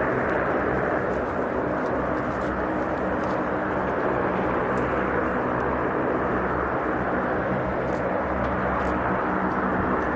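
C-130H Hercules turboprop engines running, a steady loud drone with low humming tones from the propellers beneath it.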